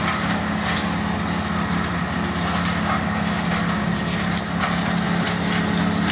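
An engine running steadily at one constant pitch, with scattered light clicks and rustles over it.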